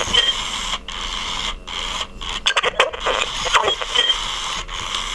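Circuit-bent Tiger Electronics Furby putting out harsh, glitchy electronic noise that cuts out abruptly several times. It has stretches of rapid clicking and warped, squeaky fragments of its voice.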